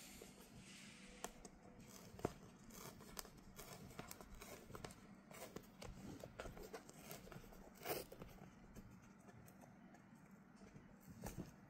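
Faint scratching and small clicks of fingers picking at and peeling the paper seal tear-strip off a cardboard tablet box, with a sharp click about two seconds in and a brief louder scrape about eight seconds in.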